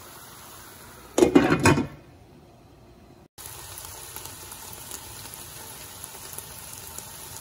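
Chicken pieces sizzling in oil in a nonstick frying pan. About a second in, a lid is set on the pan with a brief clatter, and the sizzle goes dull and muffled under it. Then a steady open-pan sizzle of the browned chicken starts abruptly.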